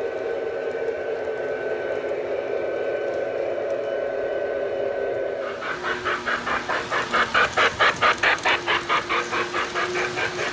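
Model train cars rolling on three-rail O-gauge track, a steady low rumble. About five seconds in this gives way to a model steam locomotive's sound-system chuffing, even and rhythmic at about four chuffs a second, loudest about eight seconds in, as passenger cars roll past.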